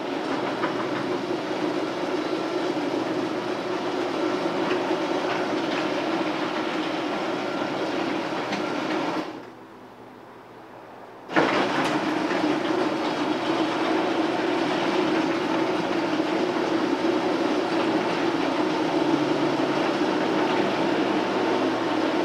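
Electric garage door opener running steadily as the sectional door travels up. It stops for about two seconds, then starts again suddenly and runs the door back down.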